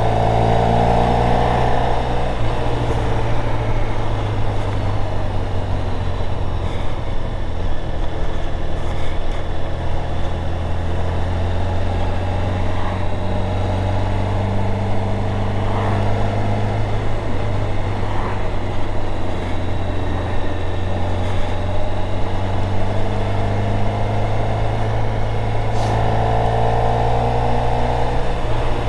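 Motorcycle engine running steadily at cruising speed, heard from on board. A whine rises and falls with the throttle near the start and again near the end.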